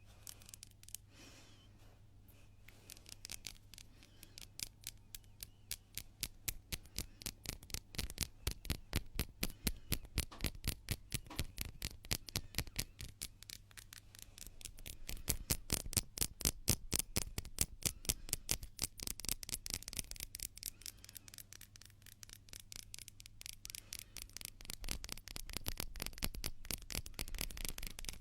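Hands rubbed briskly together close to the microphone, a fast, even rhythm of about four or five strokes a second. It starts faint and grows louder after a few seconds, swelling and easing.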